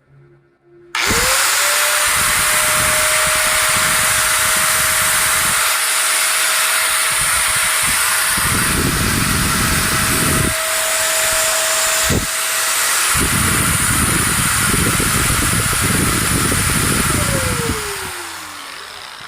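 Ingco 750-watt angle grinder switched on about a second in, spinning up quickly to a steady high whine and running free with no load, then switched off near the end and winding down with a falling whine. It spins smooth and is not very noisy, taken as a sign of a sound, genuine motor.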